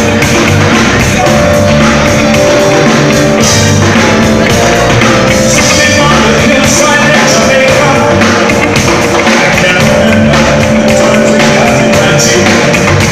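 Live reggae band playing loud: electric guitar, bass and drums on a steady beat, with a man singing into a microphone.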